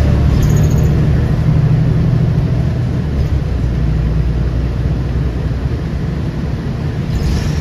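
Loud, steady low engine rumble with no change in pitch.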